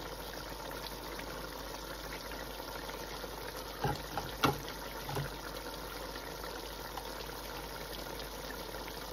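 Pot of beef and broth simmering, a steady bubbling hiss, with three brief knocks about four to five seconds in.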